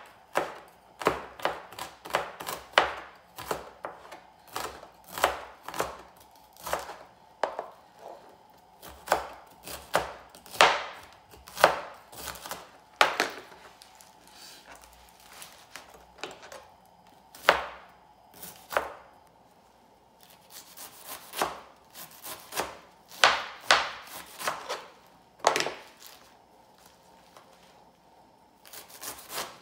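Chef's knife chopping a bunch of sweet potato leaves on a plastic cutting board: irregular sharp knocks of the blade on the board, about one or two a second, with short pauses where the leaves are gathered up again.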